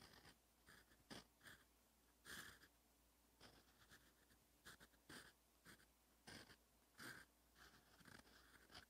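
Fountain pen nib scratching on paper as Korean characters are written, a dozen or so short, faint strokes with brief pauses between them.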